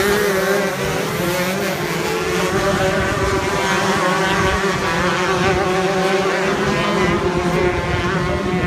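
Two-stroke 125cc shifter kart engines running at race pace, their pitch wavering up and down with throttle and gear changes.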